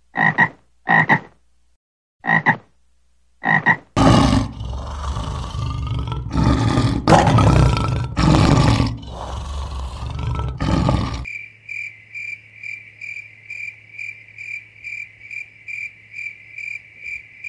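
A frog croaking four times, then a lion roaring in several long, loud, rough swells. About eleven seconds in, it cuts to an insect's high, steady buzz pulsing about two and a half times a second.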